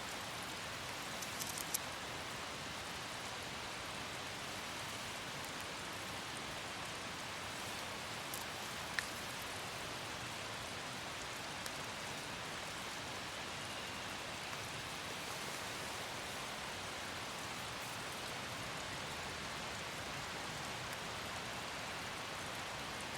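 Steady hiss of light rain falling, with a few faint sharp ticks.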